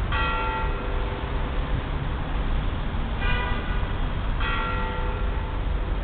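Russian Orthodox church bells being rung from the belfry: three strokes. One comes just at the start, a higher-pitched bell strikes about three seconds in, and another comes about a second later. Each rings on for about a second over a steady low rumble.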